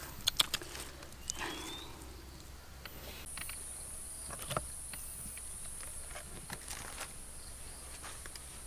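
A high-pitched, steady insect drone comes in about three seconds in. Before it there are a few sharp clicks and knocks near the start, which fit hands handling raw meat on a wicker basket.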